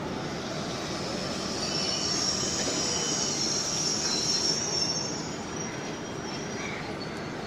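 Train wheels squealing against the rails as the train rolls through, over a steady rumble. The high-pitched squeal swells and is loudest in the middle, then fades.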